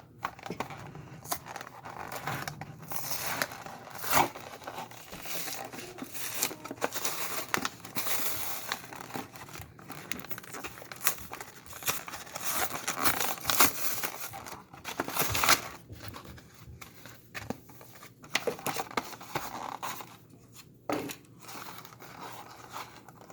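Plastic and cardboard packaging being opened by hand: a run of crinkling, tearing and rustling with many scattered sharp clicks and snaps.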